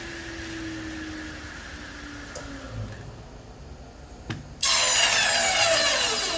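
Table saw motor and blade winding down after being switched off, a hum sliding slowly lower in pitch. A knock comes about four seconds in, and just after it a much louder whirring starts suddenly and falls in pitch.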